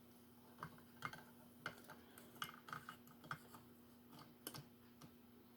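Faint, irregular light clicks and taps of small metal parts being handled, as an old TV antenna clip is fitted to hang a part, over a faint steady hum.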